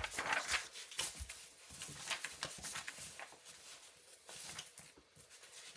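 Sheets of paper being handled and shuffled through on a table, with irregular rustles and light taps.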